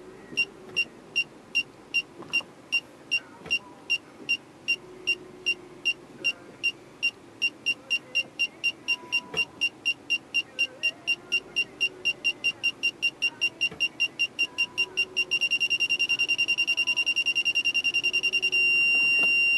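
Aftermarket backup parking sensor's display unit chirping as the van reverses toward a wall: about two to three high beeps a second at first, getting faster and faster, then merging into one continuous tone near the end, which signals the obstacle is very close.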